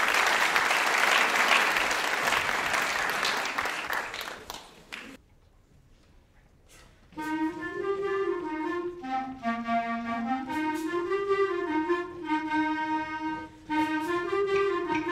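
Audience applause, cut off abruptly about five seconds in. After about two seconds of near silence, a junior school wind band begins its closing piece with a single-line woodwind melody that rises and falls in pitch.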